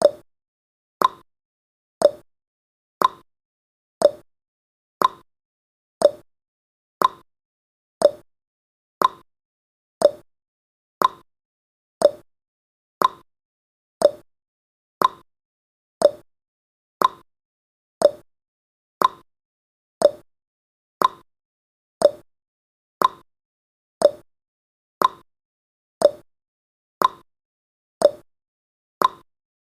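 Countdown timer's tick sound effect: a short, sharp tick once every second, steady and even.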